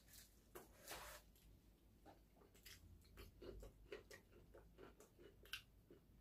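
Faint eating sounds: soft chewing with small scattered clicks and crackles, several a second.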